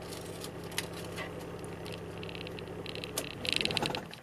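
Toyota 1HD-T 4.2-litre inline-six turbo diesel idling steadily, heard from inside the cab. Near the end a brief jingle of keys at the ignition, and the engine shuts off.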